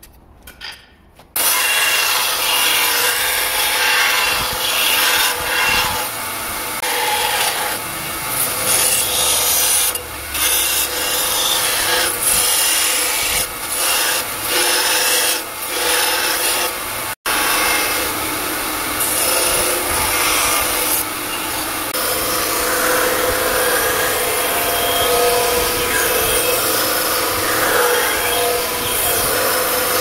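Belt grinder grinding a forged padlock-damascus steel knife blade. The grinding starts suddenly about a second in, over the steady hum of the running belt, and dips briefly several times as the blade comes off the belt.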